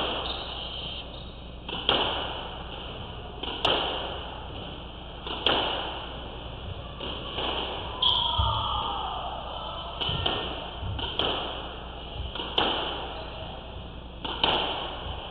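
Squash ball struck hard in a rally, sharp echoing cracks of racket and wall about every one and a half to two seconds. A short falling squeak comes about halfway through.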